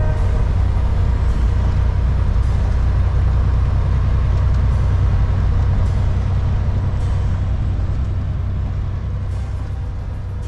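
Semi truck's diesel engine running steadily with a deep drone, heard from inside the cab while cruising in eighth gear, high range, of a 13-speed manual transmission. It fades near the end as music comes in.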